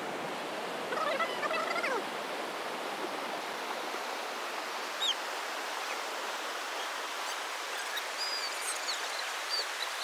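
Steady rush of water from a stream running through the valley. Over it come a short wavering call about a second in and a few brief high chirps around the middle and near the end.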